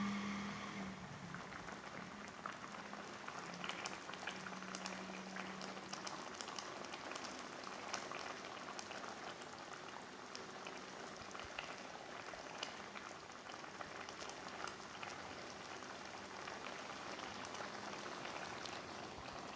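Chili sambal cooking in oil in a pan, bubbling and spitting with a dense, steady crackle of small pops. A low hum under it fades out about a second in.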